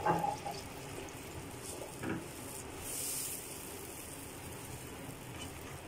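Plastic spatula stirring and scraping through a watery fish curry in a nonstick frying pan, with a clatter at the start, a knock about two seconds in and a brief scrape about a second later.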